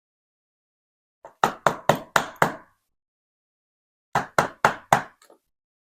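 Sharp knocks in two quick runs of about five each, a pause of under two seconds between them: the Dom ix5 HT lock being tapped to work a stuck part out while it is taken apart.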